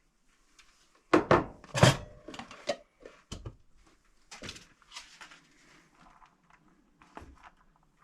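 A utensil knocking and scraping against dishes as leftover spaghetti and meatballs are spooned out of a bowl. The loudest clunks come about a second in, followed by lighter scattered clicks.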